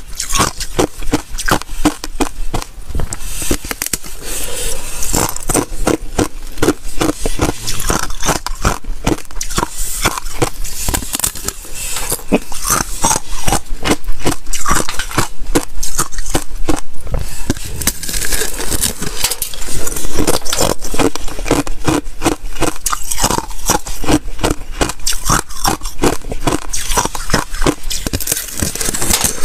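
Thin sheet of ice being bitten and crunched between the teeth: a continuous, irregular run of sharp cracks and crackles.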